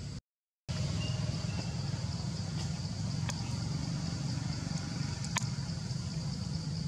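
Steady outdoor ambience: a low rumble under a continuous high, pulsing insect drone, with two faint clicks. The sound cuts out briefly just after the start.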